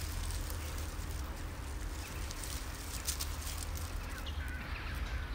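Steady low wind rumble on the microphone, with light rustling in dry leaves. About four seconds in comes a faint, high little meow from a calico cat.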